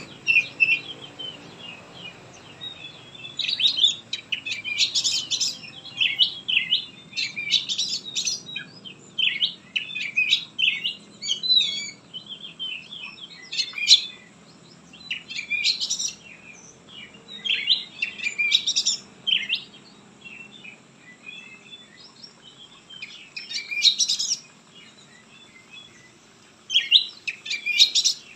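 Male Oriental magpie-robin (kacer) in full song: varied high whistled phrases delivered in bursts a second or two long, with short pauses between, busiest in the first half.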